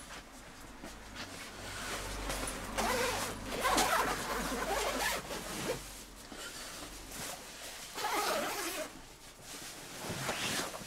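Zipper of an Outwell Contour Supreme synthetic-fill sleeping bag being pulled in several rasping runs, strongest about three seconds in and again about eight seconds in, with rustling of the quilted nylon shell as the bag is handled.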